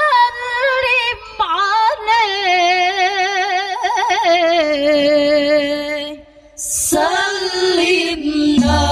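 A girl's solo voice singing a slow, ornamented melody with wavering pitch and no accompaniment, breaking off about six seconds in before the singing resumes. Just before the end, frame drums come in with low beats.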